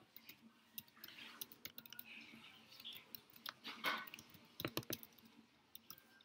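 Typing on a computer keyboard: faint, irregular key clicks as a line of code is entered.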